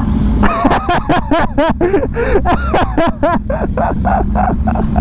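A person laughing hard in a rapid run of short bursts, turning breathier near the end, over motorcycle engines idling.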